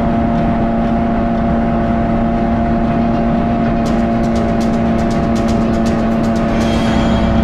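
Jet ski engine running at a steady cruising speed, a constant drone that holds one pitch. About four seconds in, a run of light crackling ticks comes in over it for a few seconds.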